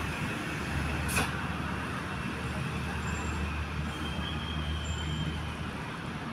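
Road traffic: a heavy vehicle's engine running with a steady low rumble, and a single sharp click about a second in.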